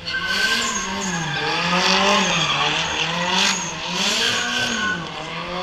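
A drift car's engine revving up and down several times, with tyres squealing as it slides.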